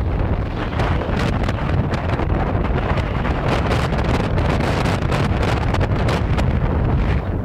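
Wind buffeting the camera's microphone: a loud, steady low rumble with frequent gusty crackles.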